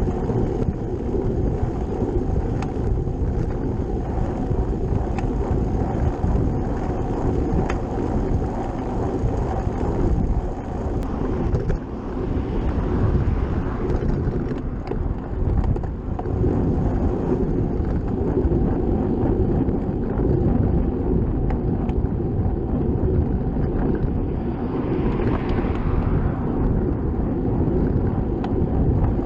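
Steady wind buffeting the microphone over the running noise of a bicycle being ridden.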